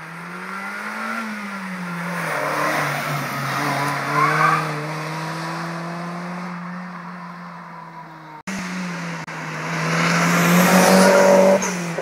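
Car engine under hard acceleration: its pitch rises, then drops at a gear change about a second in, with a short squeal about four seconds in. After an abrupt cut, a second hard run, louder, peaks near the end and stops suddenly.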